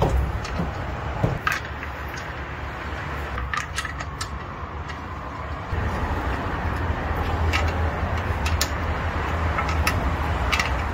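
Small metal clicks and taps as wheel bolts are threaded into the hub by hand and a socket is fitted over them and turned, over a steady low hum that gets louder about six seconds in.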